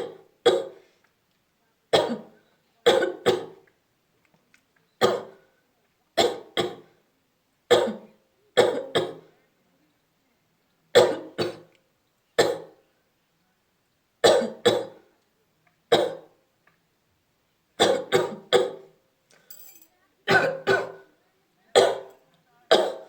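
A person coughing deliberately, over and over. The short, forced coughs come singly or in quick runs of two or three, every second or two, with brief silences between.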